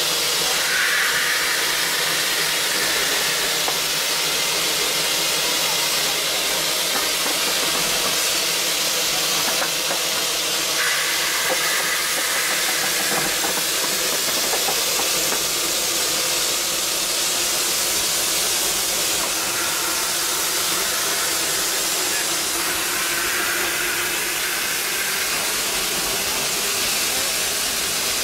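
Steam hissing steadily as it escapes from around the cylinder and valve gear of a 1915 Baldwin 0-6-2T steam locomotive.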